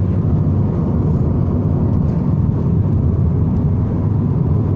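Steady low road and engine noise from inside a moving car's cabin.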